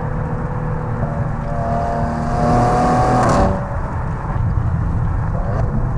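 2017 Maserati Levante's engine and exhaust running at road speed over a steady low rumble. From a little over a second in, the engine note climbs and grows louder as the car accelerates, then drops away abruptly about three and a half seconds in.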